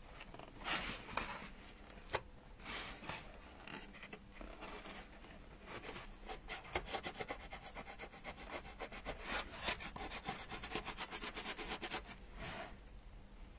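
Double-sided tape being pressed and rubbed around a pumpkin stem with the fingers and its backing peeled away: soft rubbing strokes, then a stretch of fine rapid crackling from about six to twelve seconds in.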